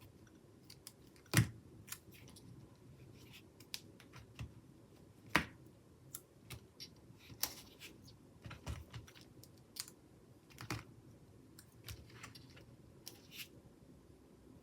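Small star stickers being peeled off a sticker sheet and pressed onto planner paper: irregular light clicks and taps, with a couple of sharper taps about a second and a half and five seconds in.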